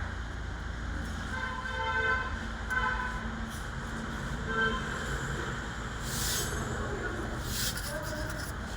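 Steady low background rumble with a few short, high-pitched toots in the first half, and two brief hissing rasps near the end.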